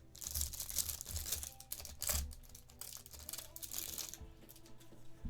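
Foil wrapper of a football trading-card pack crinkling and tearing as it is opened and handled, a dense rustle in surges for about four seconds that then dies down.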